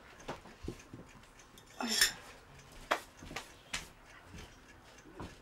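Scattered light knocks and clinks of household objects being handled, about half a dozen separate strikes, the loudest a clattering one about two seconds in.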